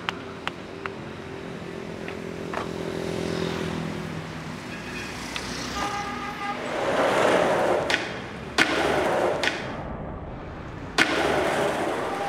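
Skateboard wheels rolling on asphalt amid passing city traffic, with a car horn tooting briefly near the middle. A few sharp board clacks come later, about two and a half seconds apart.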